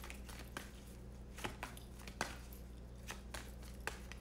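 A tarot card deck being shuffled and handled by hand: a string of soft, irregular card clicks and flicks, over a low steady hum.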